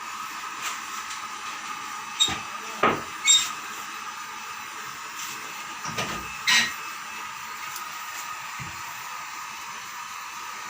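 Hair dryer running with a steady airy hiss and a constant hum, broken by a few sharp knocks and clicks around three seconds in and again around six seconds in.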